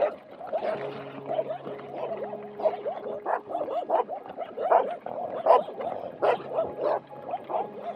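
Several dogs barking in quick, overlapping bursts throughout, over a low steady hum.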